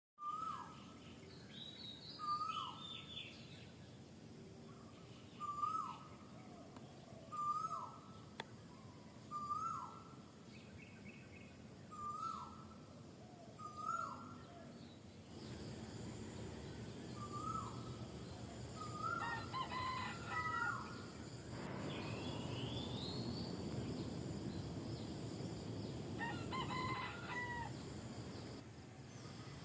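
Birds calling: a short falling call repeated every second or two, then longer, layered calls and a rising call, over a steady hiss that grows louder about halfway through.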